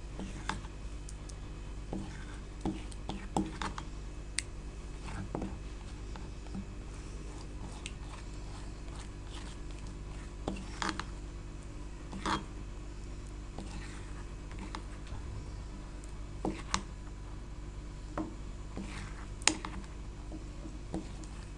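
Red silicone spatula scraping and tapping against a stone mortar as chutney is scraped out: scattered soft scrapes and clicks with a few sharper knocks, the loudest near the end, over a steady low hum.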